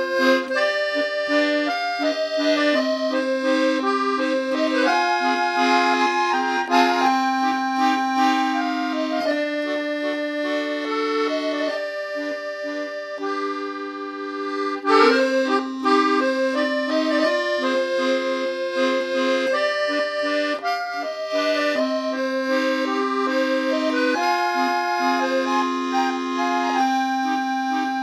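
Accordion music: a melody played over sustained low notes.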